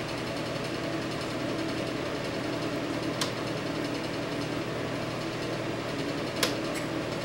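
Steady machine hum with a hiss, running throughout, and two sharp clicks: one a little after three seconds in and another about three seconds later.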